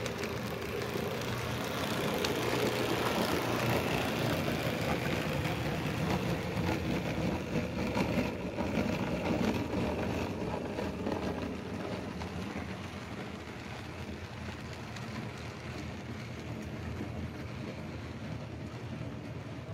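HO scale model freight train rolling past on the track: a steady rumble of the cars' wheels running over the rails, louder in the first half and easing off as the train goes by.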